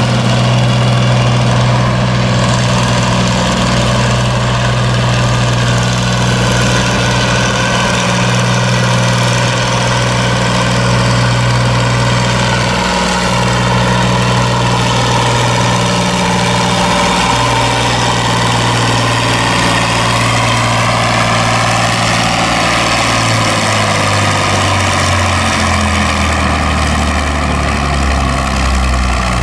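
John Deere farm tractor's diesel engine pulling a weight-transfer sled at steady high revs under full load. About 23 seconds in, the engine lugs down and its note drops in steps as the tractor bogs to a stop at the end of its pull.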